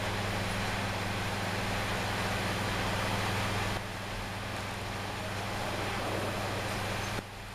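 Passenger train running, heard from inside the carriage: a steady rush of wheel and air noise over a low hum, which drops in level about four seconds in and again near the end.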